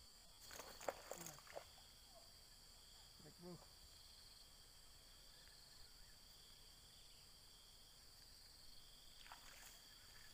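Near silence with a faint, steady, high-pitched drone of insects, and a few faint rustles in the first second or two and again near the end.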